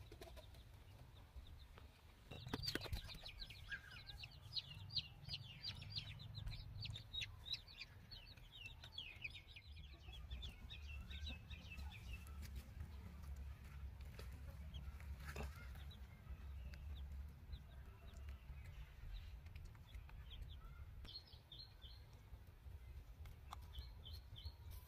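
Baby chick peeping: a fast run of short, high, falling peeps for about ten seconds, then a few more peeps near the end, over a low steady rumble.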